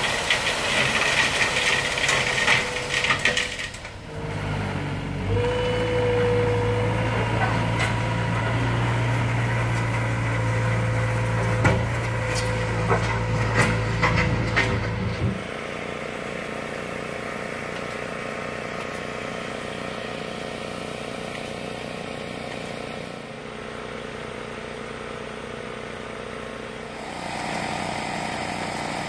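A dump trailer unloading gravel, a dense rattling noise, then a compact wheel loader's diesel engine running steadily for about ten seconds. A quieter steady hum follows.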